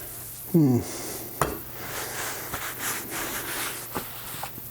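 Metal tools and engine parts being handled and scraped, with a short falling squeak near the start and a sharp click about a second and a half in, followed by scratchy scraping and a few lighter clicks.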